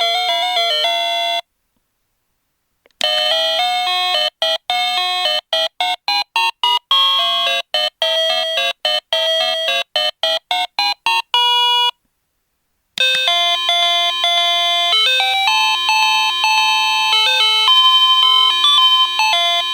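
Daiso wireless call chime playing its 8-bit electronic melodies. One tune stops about a second and a half in; after a pause and a small switch click, a choppy tune of short separated notes plays, then after another pause a smoother tune of held notes begins about thirteen seconds in.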